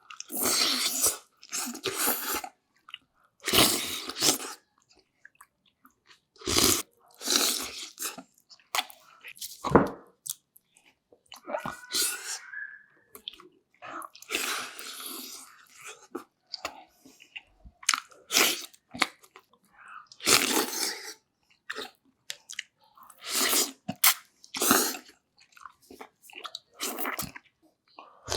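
A person eating, with close-up chewing and crunching in irregular bursts separated by short pauses.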